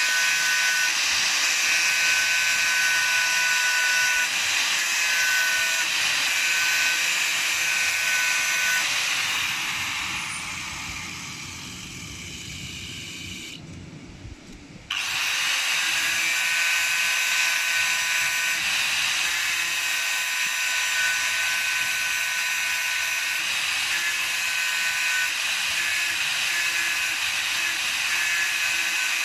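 Electric power tool running steadily with a high whine, winding down and stopping about nine to fourteen seconds in, then switched back on abruptly and running steadily again.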